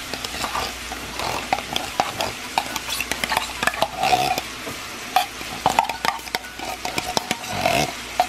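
Chicken, diced tomatoes and vegetables sizzling in a skillet, with a spoon repeatedly clicking and scraping as condensed cream of mushroom soup is spooned onto them.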